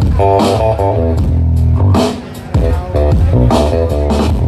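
Loud music played over a large outdoor PA system of tall hanging speaker stacks, with heavy bass, and a brief drop in the music about two seconds in.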